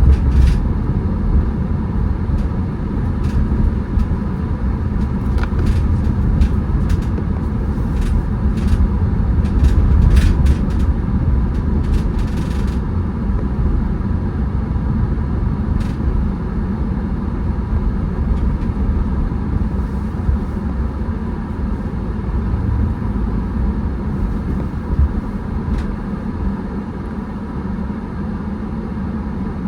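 Car driving on the road: a steady low rumble of engine and tyres, with scattered sharp clicks and ticks through the first half.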